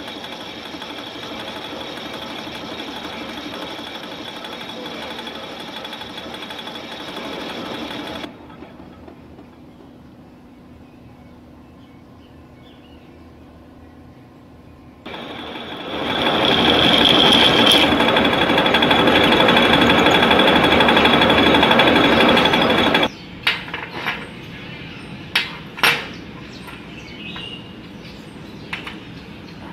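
Metal lathe running while turning a steel gear, chips coming off the cut. After about eight seconds it goes quieter, runs again louder for about eight seconds, then stops, and a few sharp clicks follow near the end.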